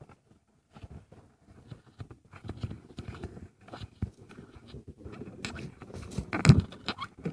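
Irregular rustling, scraping and tapping noises, with a louder noisy burst about six and a half seconds in.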